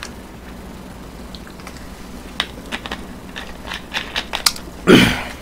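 Plastic water bottle being handled: scattered light clicks and crackles. Near the end comes one short, loud rush of noise.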